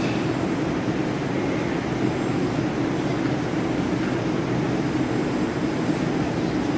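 Steady low hum and rush of an 81-775/776/777 'Moscow-2020' metro train standing at an underground station platform, with the station's noise around it.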